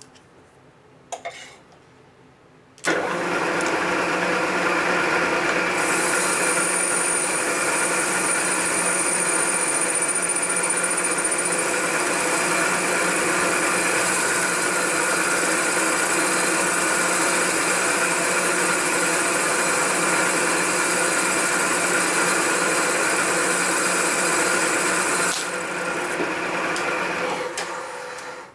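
Vertical milling machine spindle starting up and running steadily, turning an offset boring head that takes a pass on the welded exhaust spigot of an aluminum panhead cylinder head; a thin high tone rings from the cut for a few seconds early in the run. The run eases off a couple of seconds before the end and the machine stops.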